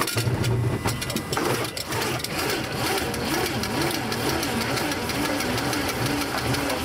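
The Boeing 707's Pratt & Whitney JT3D turbofan engines running, heard from inside the cockpit: a steady low rumble with a wavering tone rising and falling above it.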